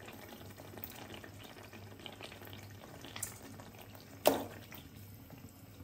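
Onion-tomato masala frying in oil in a karahi, a faint, steady crackling sizzle. About four seconds in there is one sharp knock as raw chicken pieces are scraped from a plastic basket into the pan.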